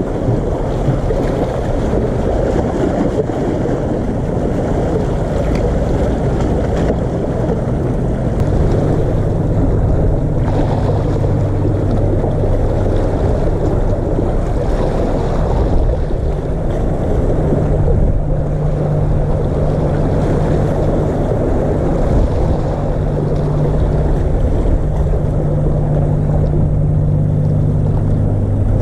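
Sea waves washing and splashing against the concrete tetrapods of a breakwater, a steady wash of surf. From about eight seconds in, a low steady hum runs underneath.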